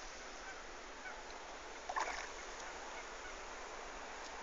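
Quiet lakeside ambience: a steady soft hiss with a low wind rumble on the microphone. A single short bird call sounds about two seconds in.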